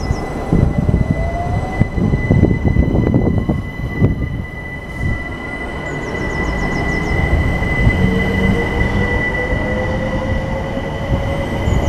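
London Overground Class 378 electric multiple unit pulling past at the platform. Its traction motors give an electric whine that rises in pitch twice as it accelerates, over rumbling wheel and rail noise and a steady high tone.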